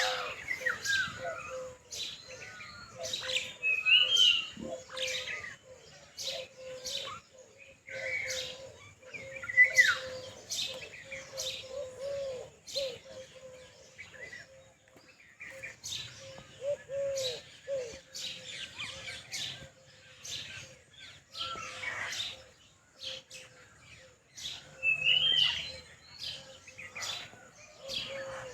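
Several lovebirds chirping and chattering, with many short, sharp chirps and a few warbling calls overlapping throughout.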